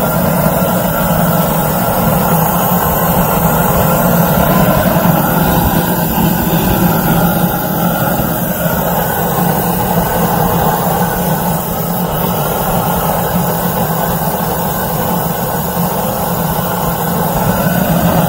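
A GrillGun propane torch burning steadily, its flame aimed into lump charcoal in a kettle grill to light the coals. It gives a loud, even rush of flame.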